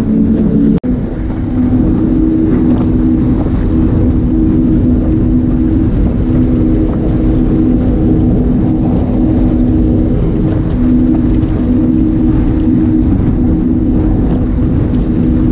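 Mercury 450R outboard engines of an MTI 390X catamaran running steadily under way: a few steady engine tones over a rushing noise. The sound cuts out for an instant just under a second in.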